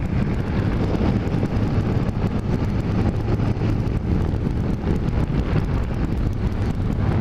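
Motorcycle engine running steadily at cruising speed, with a low even hum under wind rushing over a helmet-mounted microphone.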